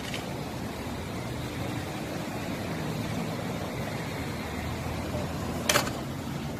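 Steady low hum and hiss, with one sharp click about five and a half seconds in.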